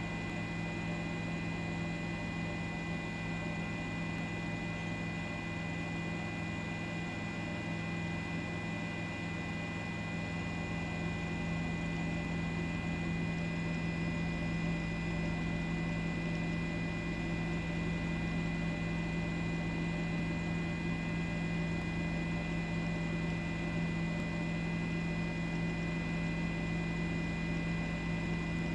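Steady electrical hum with a strong low tone and a fainter high whine, unchanging throughout.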